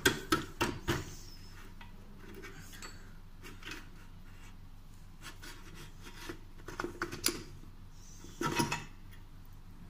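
Metal clicks and rubbing as the front axle of a Honda Activa scooter is worked loose in the wheel hub by hand, with a short scrape near the end as the axle slides out.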